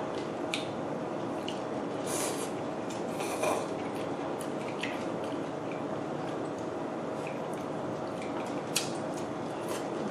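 Close-miked eating of ramen noodles and kimchi: wet mouth and chewing sounds, two short slurps about two and three and a half seconds in, and light clicks of utensils against a bowl, over a faint steady hum.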